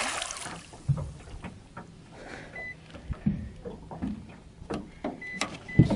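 A hooked pike splashes and thrashes at the surface briefly at the start. Then come scattered clicks and a few low knocks while the fish is played on a spinning rod, with several short high beeps.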